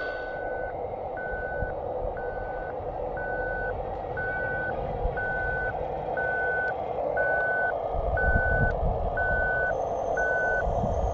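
Reversing alarm of a scale RC construction vehicle, beeping a single steady tone about once a second, over the steady whine of its motor and hydraulics; a lower rumble builds near the end and the beeping stops just before the end.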